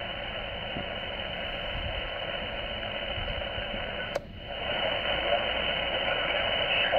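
Xiegu G90 HF transceiver's speaker giving a steady hiss of empty-band noise in SSB receive as it is tuned up the 20 m band. About four seconds in there is a sharp click, and the hiss drops out briefly.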